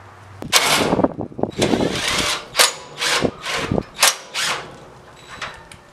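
Cordless drill/driver backing out the screws that hold a headlight housing in a Jeep CJ7 grill, running in about six short bursts, then stopping about four and a half seconds in.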